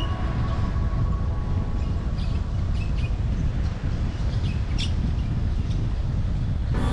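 A steady low rumble of wind and riding motion on the microphone, with a few short bird chirps in the middle. Background music fades out at the start and cuts back in suddenly near the end.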